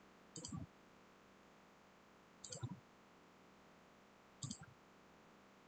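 Computer mouse clicking: three short bursts of a few quick clicks each, about two seconds apart.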